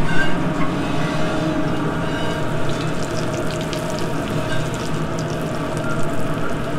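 Egg-dipped chicken cutlets frying in oil and butter in an aluminium sauté pan over a gas burner, sizzling with fine crackles that grow busier about halfway through, over a steady kitchen hum.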